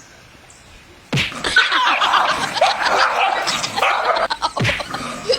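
Quiet for about a second, then a sudden commotion with people laughing.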